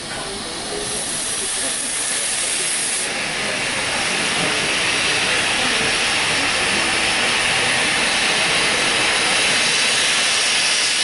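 Steam locomotive blowing off steam: a loud, steady hiss that swells over the first few seconds and then holds.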